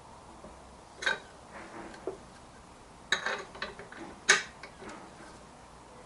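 Scattered sharp knocks and clicks of the wooden box and lathe fittings being handled as the box is turned round and remounted. There is a cluster around three seconds in, and the loudest knock comes a little after four seconds.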